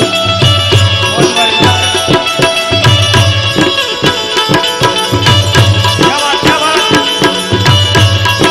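Instrumental break in live Gujarati santvani devotional folk music: hand drums keep a steady rhythm under sustained melodic instrument lines.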